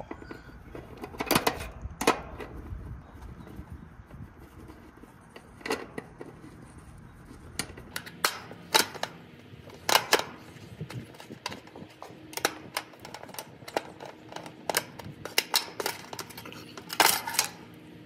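Irregular metallic clicks and clinks as a screwdriver works the mounting-strap screw and a dual run capacitor is worked free of its bracket on an air-conditioner condenser's sheet-metal cabinet.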